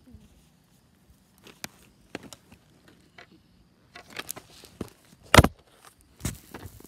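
Roller-hockey play on a concrete driveway: scattered light taps and clacks of a hockey stick and skates, then a sharp loud knock about five and a half seconds in and a second one just under a second later.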